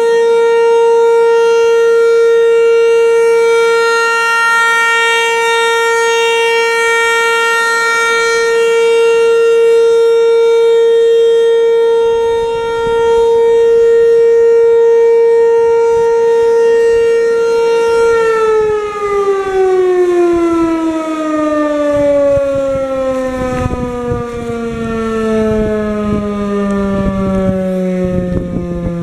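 Federal Signal 508 electromechanical outdoor warning siren sounding a steady alert tone. About 18 seconds in it winds down, its pitch falling slowly as the rotor coasts after the power is cut.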